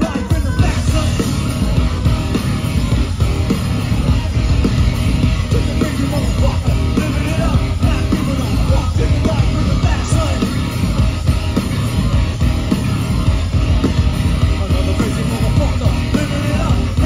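Live nu-metal band playing loudly, with heavy guitars, bass and drums and yelled vocals.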